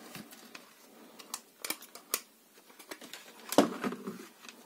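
Plastic push buttons of a RichMeters RM409B digital multimeter clicking as they are pressed to switch it to continuity-beeper mode, several separate clicks, with a louder knock about three and a half seconds in as the meter and probes are handled.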